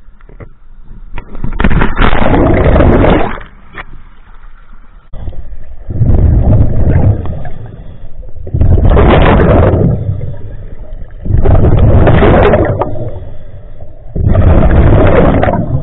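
Scuba regulator breathing underwater: five bubbling rushes of exhaled air, each about one and a half seconds long and about three seconds apart, with quieter intake breaths between.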